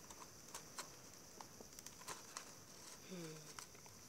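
Faint, scattered clicks and light rustling of hands handling a doll's packaging box, with a short falling hum of a voice about three seconds in.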